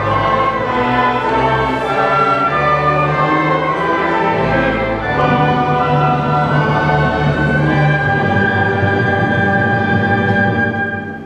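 A girls' choir singing with a string accompaniment including violins, ending on a long held chord that begins to die away near the end.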